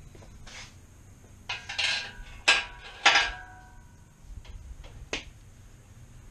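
Metal clanks and rattles from a steel engine hoist and its lifting chain as the hanging engine and transmission are pushed. A rattle comes first, then two sharp clanks about half a second apart, each with a short metallic ring, and a lighter knock near the end.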